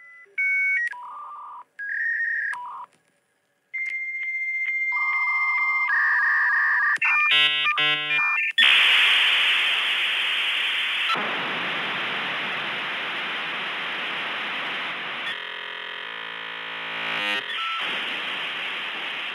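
Dial-up modem handshake: a few short beeps and steady whistling tones around 2 kHz, then a rapid warbling of alternating tones about seven seconds in. From about nine seconds in comes loud hissing static, broken by a harsh buzzing stretch of about two seconds near fifteen seconds. It is the two modems testing the phone line and negotiating connection speed.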